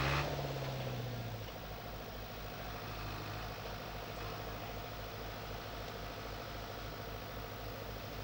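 Farm tractor's diesel engine dropping from a higher note in the first second or so, then idling steadily with an even low pulse.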